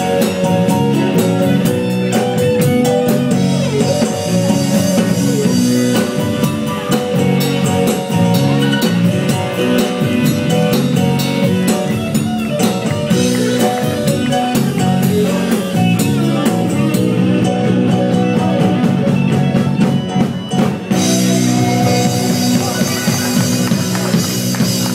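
Live band playing through a PA: drum kit, electric guitars and bass in a steady groove. The music thins for a few seconds, then the full band comes back in shortly before the end.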